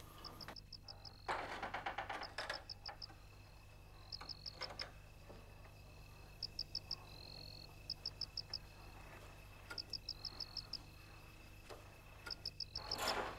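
Night-time chorus of frogs and insects: short trills of about five quick high clicks repeat every second or two over a steady high insect whine. Louder rustling noises come about a second in and again near the end.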